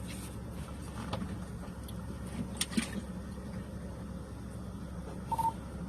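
A steady low hum, with a few faint clicks and a brief high beep near the end.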